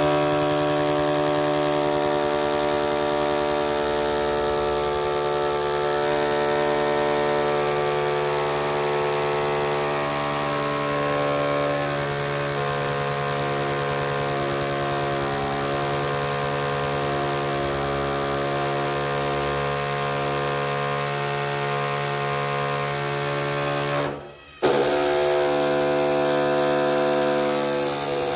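Makita cordless drill running steadily as it bores into a plastered masonry wall, its motor holding one even pitch. It stops for a moment near the end, then starts again.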